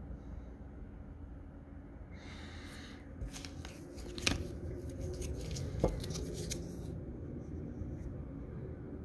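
Clear plastic coin flips being handled: a brief rustle, then crinkling and a run of clicks as a flip holding a copper round is picked up, with two sharper clicks about four and six seconds in.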